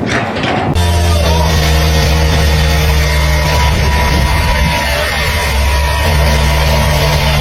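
Loud rock-style music with a heavy, steady bass, starting abruptly a little under a second in.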